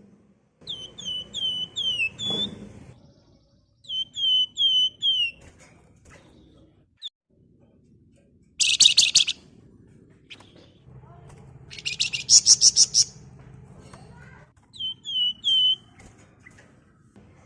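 Javan fulvettas calling: three short runs of four or five quick, falling whistled notes, and two loud, rapid buzzy chatters in the middle.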